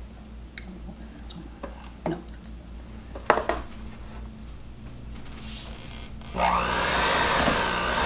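A few light knocks, then about three quarters of the way in an electric hand mixer starts up and runs steadily with a slightly wavering whine, beating cream cheese, peanut butter and powdered sugar in a plastic bowl.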